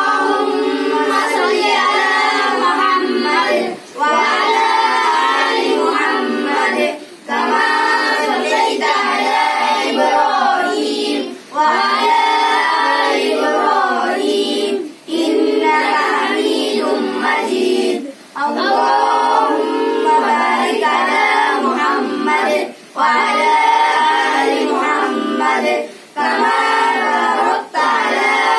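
A group of young boys reciting an Arabic prayer aloud in unison, in a chanting tone. The recitation runs in phrases broken by short breath pauses about every three to four seconds.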